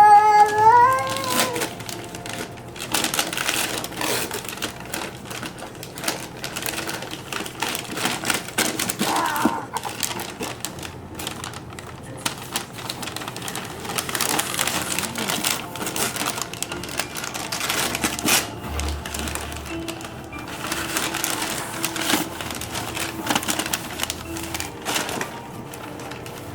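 Gift wrap crinkling and tearing in many irregular crackles as a present is opened, with a short pitched vocal sound, rising then falling, in the first second or two.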